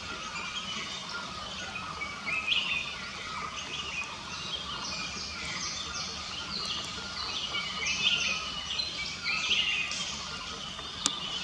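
Several small birds singing and chirping, with many overlapping quick, high sweeping notes. There is a single sharp click near the end.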